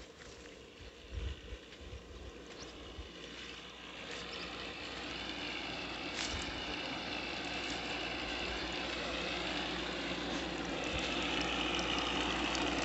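Irrigation water pump running steadily, a mechanical hum that grows gradually louder.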